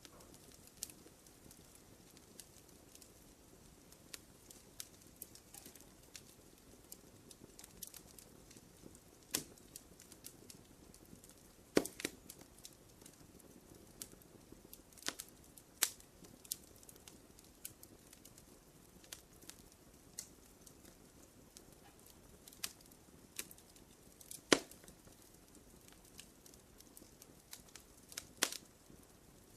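Campfire crackling: a faint, steady hiss of flames with scattered sharp pops and snaps. The loudest pops come about twelve seconds in and again near twenty-four seconds.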